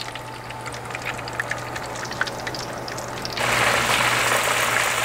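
Breaded perch fillets deep-frying in oil at about 360 °F in an electric fryer pot: a steady sizzle with scattered crackles and pops, which turns abruptly louder and denser about three and a half seconds in.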